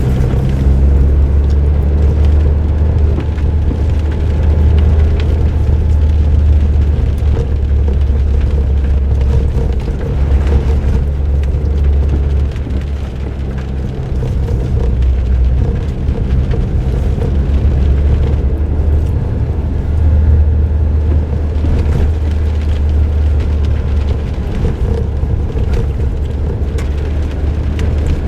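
Suzuki Jimny JB23W's 660 cc turbocharged three-cylinder engine, breathing through an aftermarket muffler, running under way with tyre and road noise. Its low drone eases off for several seconds partway through, then comes back.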